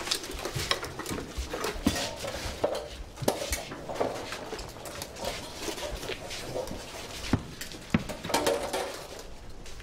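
Metal armour and gear clinking and knocking as soldiers handle helmets and move about, scattered sharp clinks over a busy rustle of movement.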